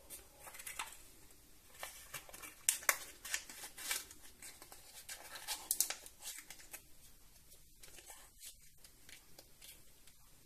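Chopped almonds crackling and rustling in a bowl as fingers roll a ball of dough through them. The crackles come in quick runs for about the first six seconds, then turn fainter.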